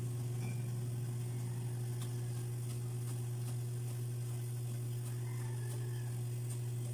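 Soy broth simmering around rice noodles in an aluminium wok over a gas burner: faint, scattered pops and ticks over a steady low hum.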